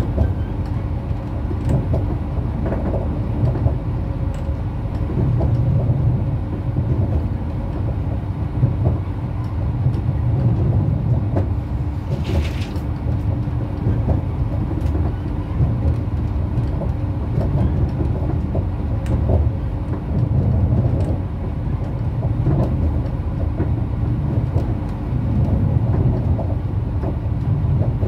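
Bombardier AGC (B82500-series) railcar running at speed, heard from inside the passenger cabin: a steady low rumble of wheels on rail with scattered light clicks. A short hiss comes about twelve seconds in.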